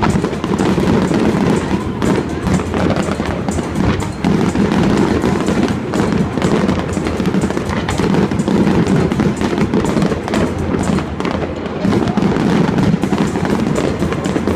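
Fireworks display going off in a rapid, continuous run of bangs and crackles, with music playing over the stadium loudspeakers.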